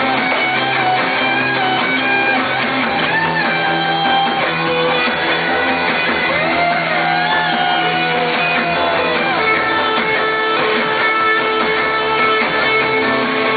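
Live rock band playing, with an electric guitar lead line full of bent, sliding notes over steady bass and rhythm underneath.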